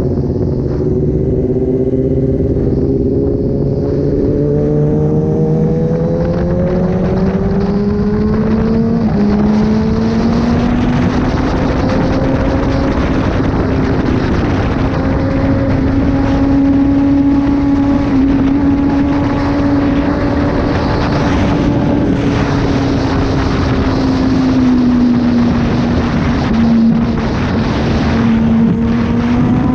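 Kawasaki ZX-10R inline-four running through an SC-Project exhaust while riding along. The engine note climbs gradually over the first ten seconds, holds fairly steady, dips about three-quarters of the way through and rises again at the end, over a constant rushing noise.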